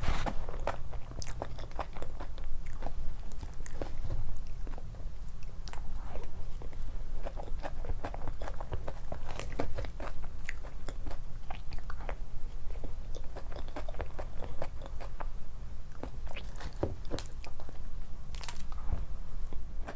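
Close-miked eating sounds: a person biting and chewing food, with many small, irregular mouth clicks and squelches.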